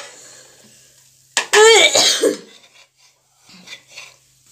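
A person coughs once, loudly, about a second and a half in, with a short voiced tail that falls in pitch.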